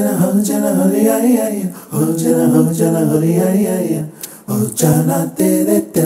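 Background song: sung vocal phrases with no clear instrumental backing, broken by two short pauses.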